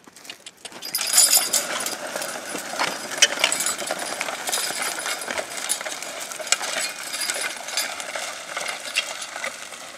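Steel disc harrow, built for a tractor, dragged through dry tilled soil by a pair of draft horses: a steady scraping and clattering of the disc blades and frame, starting about a second in.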